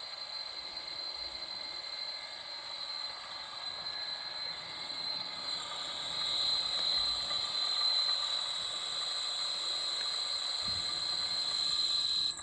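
Hendriks 100-tonne welding rotator's electric drive running with a steady high-pitched whine over a faint hiss, growing a little louder about six seconds in.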